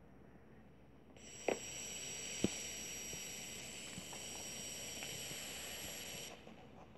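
Steady hiss with a faint high whine from blank videotape playing through a TV speaker. It starts about a second in as the VCR's blue screen drops out and stops suddenly near the end. Two sharp clicks come shortly after it starts.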